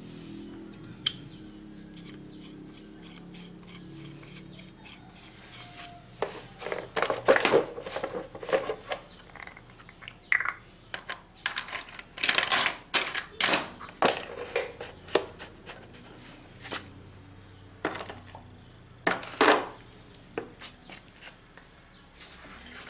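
Metal hand tools and small metal parts clinking and clattering in irregular bursts while a scooter engine is being worked on. The clatter starts about six seconds in, after a quiet stretch with a faint low hum, and dies away near the end.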